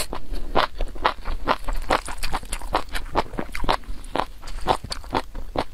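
Close-miked chewing of spicy noodles: a quick noodle slurp right at the start, then a steady run of wet mouth clicks and smacks, about three or four a second.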